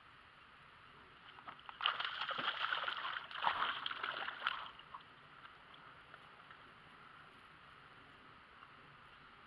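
A hooked fish thrashing and splashing at the water's surface for about three seconds, starting about two seconds in.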